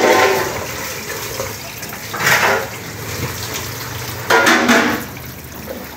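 Tap water running into a stainless steel sink and over a fish carcass being rinsed, with louder splashing surges about two seconds and four and a half seconds in.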